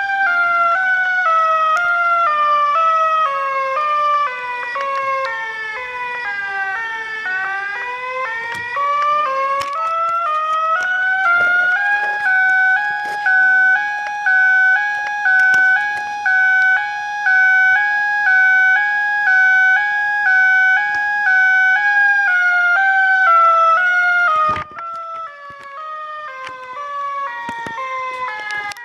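Homemade siren sounding: its pitch slides down slowly in small steps, climbs back up, then alternates between two close pitches about once a second. Near the end there is a click and it carries on quieter, sliding down again.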